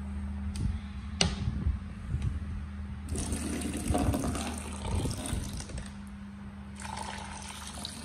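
Thin stream of water pouring and splashing into a plastic basin of shallow water, starting about three seconds in, easing briefly and picking up again near the end. Before it, a few light splashes from a parrot bathing in the water.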